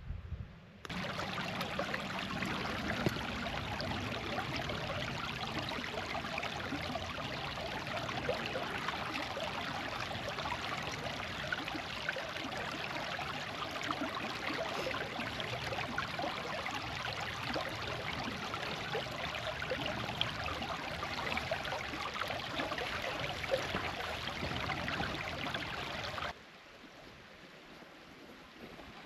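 Shallow mountain stream running over stones, a steady rush of water that cuts off abruptly near the end.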